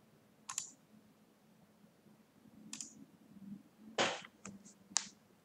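A handful of sharp computer-mouse clicks, about six spread through, the loudest about four seconds in, over a faint low hum.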